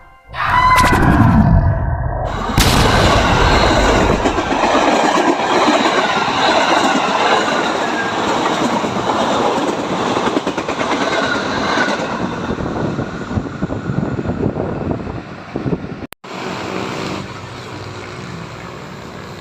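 A train running past at close range, with steady rumble and wheel noise on the rails. The sound cuts off abruptly about sixteen seconds in and resumes more quietly.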